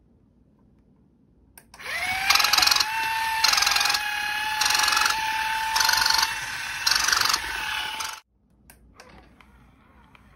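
Walking dog toy's small electric motor spinning up with a quick rising whine, then running at a steady pitch. The gear mechanism clatters in a rhythm about once a second over the whine, and everything stops abruptly after about six seconds.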